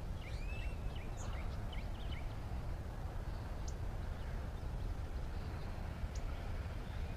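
Outdoor pondside ambience: a steady low rumble with birds chirping, a quick run of short calls in the first second and a half, then a few single chirps.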